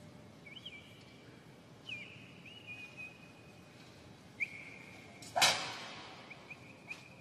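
High whistle-like tones sound several times, each starting with a quick flick in pitch and then held. About five seconds in there is one loud sharp crack that rings out and dies away over about a second.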